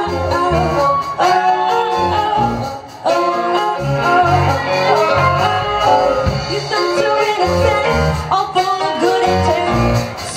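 A live band plays a song with drums, guitar and saxophones, with a female voice singing.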